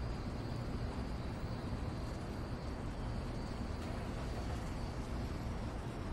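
Steady outdoor ambience: a low rumble like distant road traffic, with a faint, high insect-like whine running over it.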